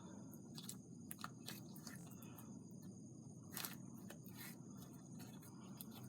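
Faint, scattered crackles and clicks of foam slime being handled and squished, over low room noise.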